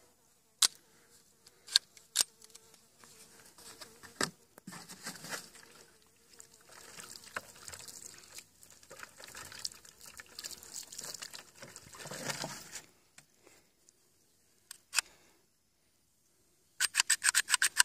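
Water poured from a plastic jug splashing over a sand- and mud-clogged Beretta 92FS pistol and onto sand for about ten seconds, to rinse grit out of the action. Scattered clicks from handling the pistol come before and after the pour, and a quick run of clicks comes near the end.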